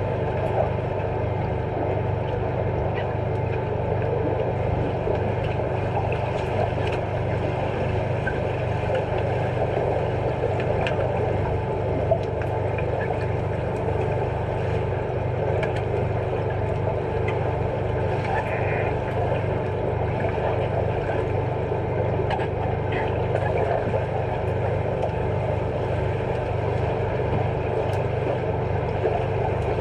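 Steady underwater drone of a swimming pool heard from below the surface: a low hum with rushing water noise, sprinkled with faint clicks and knocks from the players' play and bubbles.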